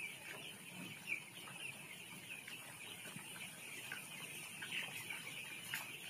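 A flock of young desi chicks peeping together, many short high chirps overlapping continuously, with an occasional louder peep standing out.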